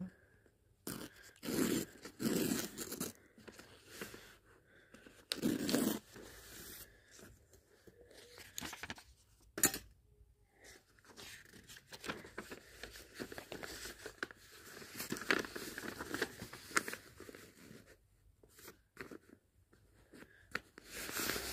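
A sheet of thin craft paper being torn along the edge of a plastic ruler in short rips, the loudest about two and six seconds in, followed by softer rustling and crinkling as the paper is handled and folded.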